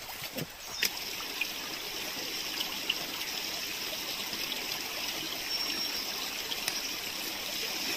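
Steady outdoor background hiss like running water, with a couple of faint clicks.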